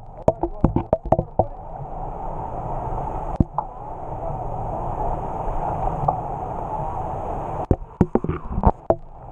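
Muffled steady background noise, with a rapid run of sharp clicks and knocks in the first second and a half and another cluster near the end, from the GoPro on its selfie stick being handled and knocking against the concrete.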